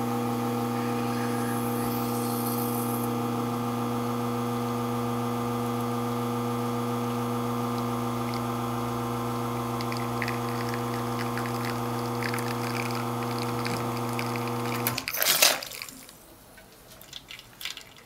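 ECM Synchronika espresso machine's rotary vane pump running steadily with water flowing, as during a shot, a constant hum that stops about fifteen seconds in with a short loud burst of noise.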